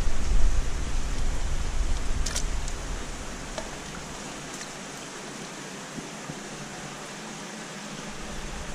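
Steady rushing hiss of running water from the aquarium sump system, with low handling rumble over the first few seconds as the wire-mesh fish trap is tipped out over a bucket, and a single sharp click about two and a half seconds in.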